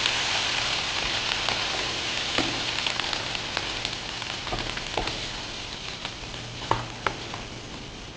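Cooked chickpeas sizzling in a hot pan of oil, onion and masala, the sizzle slowly dying down as the cooler chickpeas go in, with a few clicks of a spoon stirring against the pan.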